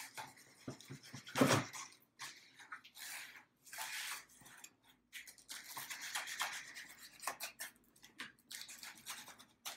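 Scissors slitting packing tape on a cardboard box, with scraping and rubbing against the cardboard in short, irregular bursts; the loudest cut comes about one and a half seconds in.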